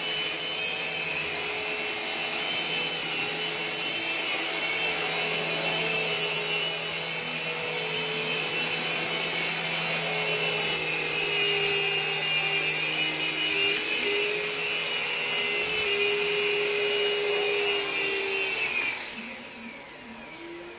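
Double Horse 9102 toy RC helicopter's small electric motors whining steadily as the rotors spin, the whine sliding down and fading away near the end as the rotors wind down.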